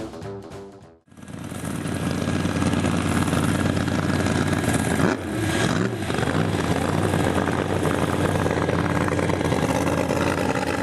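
Music cuts off about a second in, then drag-racing engines run steadily, with a brief dip and rise in pitch about halfway through.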